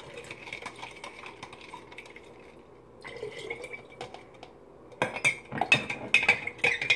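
Faint scraping and ticks as the last liquid and sugar are emptied from a plastic cup into a glass mason jar; about five seconds in, a spoon starts stirring in the jar, clinking rapidly and loudly against the glass.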